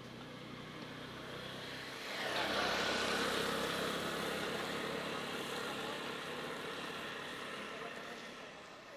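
A motor vehicle passes close by: engine hum rising, loudest about two and a half seconds in, then slowly fading away.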